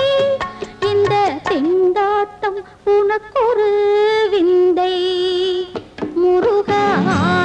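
Tamil film song music in Carnatic style: a melody of long held notes that glide between pitches and waver with vibrato, over a light accompaniment.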